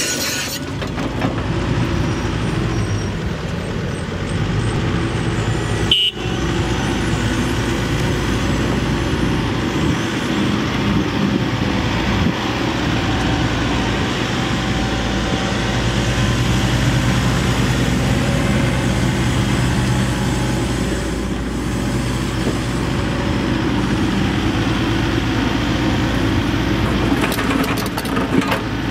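John Deere 135D excavator's Tier 3 Isuzu diesel engine running steadily under hydraulic load as the machine tracks and swings its upper structure, with a brief break about six seconds in.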